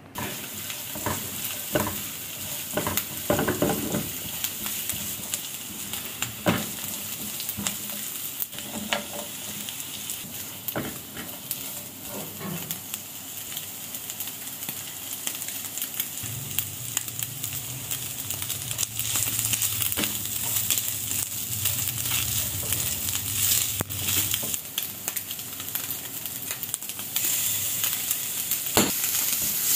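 Chopped onion sizzling as it fries in oil in a non-stick pan. A spatula scrapes and taps against the pan over the first dozen seconds. The sizzle grows louder near the end.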